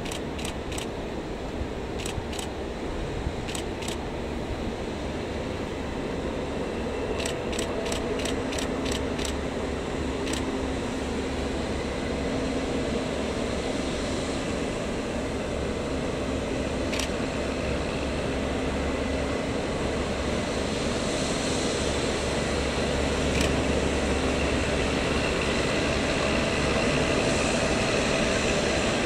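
Class 37 diesel-electric locomotive's English Electric V12 engine running as it approaches hauling a rail head treatment train, over the steady hiss of its high-pressure water jets spraying the rails. The sound grows gradually louder, and short runs of sharp clicks come in the first ten seconds.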